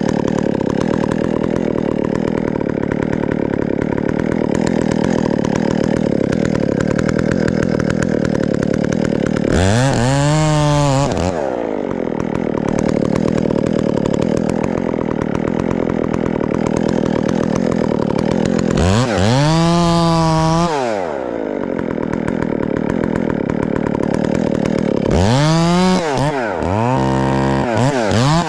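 Husqvarna 372XPW two-stroke chainsaw with a hand-filed square-ground chain cutting into wood at full throttle. Three times it comes out of the cut and the engine revs freely, its pitch rising and falling back: about a third of the way in, about two-thirds in, and near the end.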